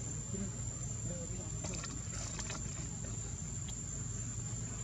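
Steady high-pitched drone of insects, with a few faint clicks about two seconds in.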